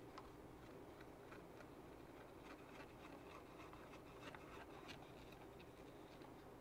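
Near silence: room tone with faint, scattered light clicks as hands handle the plastic chassis of a radio-controlled truck.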